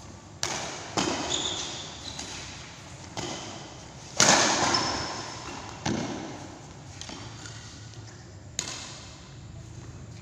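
Badminton rally in a large echoing hall: several sharp racket smacks on the shuttlecock and footfalls on the court, the loudest about four seconds in, with a few brief shoe squeaks.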